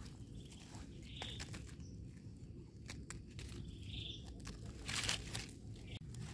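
Scattered rustling and crackling of dry leaf litter and soil as a wild mushroom is handled and its stem trimmed with a knife, the crackles thickest about five seconds in.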